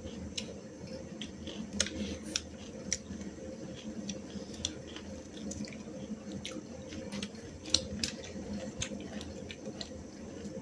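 Two people eating a meal by hand from steel plates: scattered soft wet chewing and mouth clicks, with light taps on the plates and one sharper click about three quarters through, over a steady low hum.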